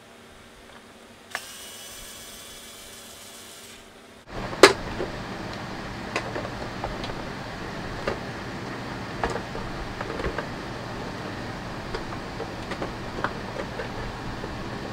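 A cordless electric screwdriver whirs for about three seconds, backing out a screw from a vacuum cleaner floor head. Then comes a loud plastic snap, followed by a run of clicks and knocks as the floor head's plastic top cover is worked loose and lifted off.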